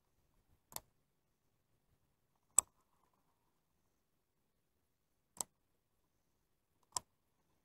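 Baitcasting reel clicking as its brake or cast-control setting is adjusted: four single sharp clicks, a second or two apart, the second the loudest.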